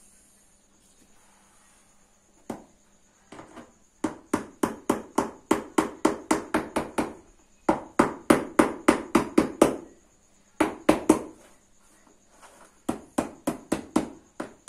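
Hammer beating a folded sheet of carpet material over a hard floor to crease and bend it. There are quick runs of sharp knocks, about five a second, broken by short pauses. The first knocks come a couple of seconds in.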